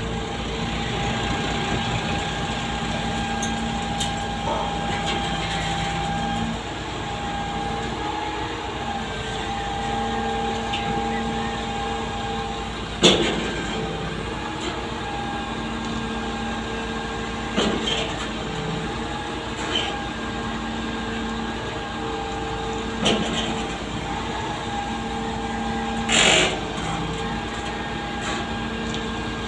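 Concrete boom pump truck's engine and pump running with a steady drone while concrete is pumped up the boom. A few sharp knocks come through it, the loudest near the end.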